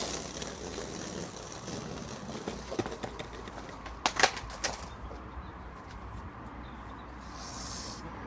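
Skateboard wheels rolling on concrete, then the sharp pop and clatter of a flip-trick attempt about four seconds in, as the tail snaps and the board hits the ground in several quick knocks.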